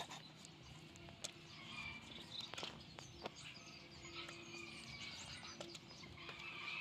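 Faint outdoor background of birds chirping and insects, with a few sharp clicks.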